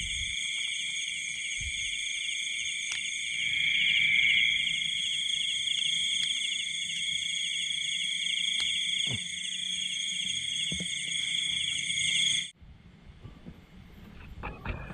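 Chorus of night insects, crickets among them, trilling steadily in several high-pitched, rapidly pulsing layers, with a few faint ticks; it cuts off abruptly near the end.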